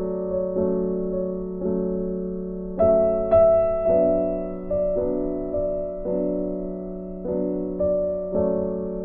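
Background music: soft piano or electric-piano chords, each struck and left to fade, over a steady low note.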